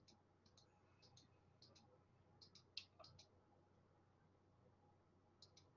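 Near silence broken by faint computer clicks advancing presentation slides. Each click is a quick double tick, coming in a run over the first three seconds and once more near the end.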